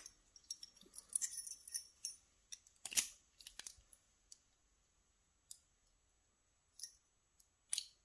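Small metallic clicks and taps from handling a disassembled Evva EPS lock cylinder and its parts. The clicks are clustered over the first few seconds, the loudest about three seconds in, then come a few single clicks.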